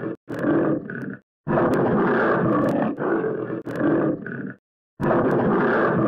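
Tiger roaring: a short roar, then a long one lasting about three seconds, then another starting near the end, each separated by a brief silence.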